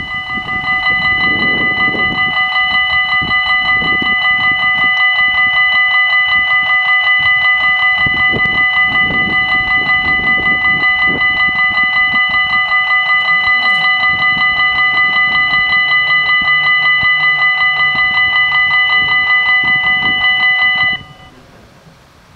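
The level crossing's electronic warning bells ring a fast, pulsing, multi-tone ring, warning of an approaching train while the barriers lower. The ring cuts off suddenly about 21 seconds in, once the barriers are down.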